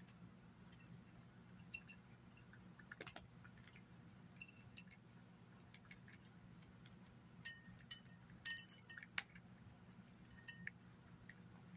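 A cat crunching dry kibble from a glass saucer, with small crisp clicks and light clinks of kibble and teeth against the glass. The crunches come sparsely at first, then in a quick, louder cluster about two-thirds of the way through.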